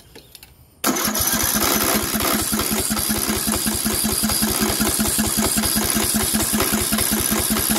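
Briggs & Stratton 18 hp riding-mower engine cranked by its starter, spinning over like crazy with a fast, even pulse but never firing; it starts cranking just under a second in. The engine has spark and a new carburetor yet turns over without catching, which the owner suspects lies in the valves or push rods.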